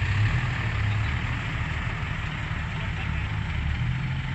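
Heavy diesel engine of earthmoving machinery running steadily with a low hum.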